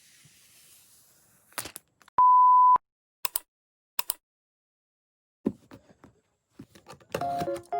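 A single electronic beep: one steady, pure tone of about half a second, the loudest sound here, set among a few short, sharp clicks.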